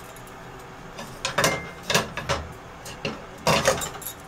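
A small metal spoon scraping and clinking in a stainless steel spice tin and against a pan as cumin seeds are scooped and tipped in: a few short scrapes starting about a second in, and a louder clatter near the end.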